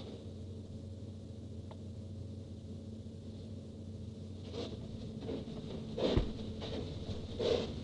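A steady low hum, with a few soft knocks and rustles about halfway through and again near the end.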